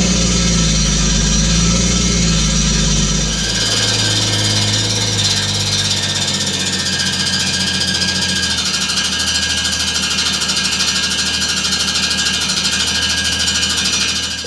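Toyota 2JZ-GTE turbocharged straight-six, swapped into a BMW E46 M3, running just after its first start, its idle stepping lower a few seconds in and again later. A clanking, rubbing noise rides on the idle: something in the engine bay is rubbing, and the owner does not yet know what.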